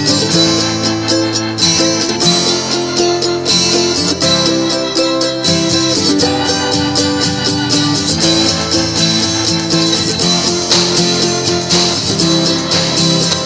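Background music led by acoustic guitar, with a steady strummed rhythm.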